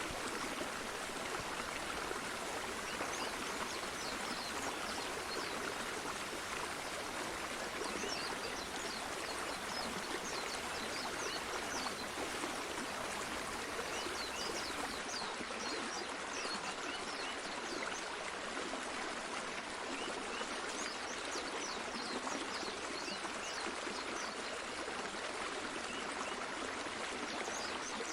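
Flowing stream of water running steadily, with short high chirps scattered through it.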